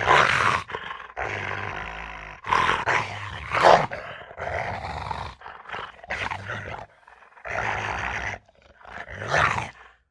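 A run of short animal growl and roar sound effects played back to back, about eight in a row, each starting and cutting off abruptly.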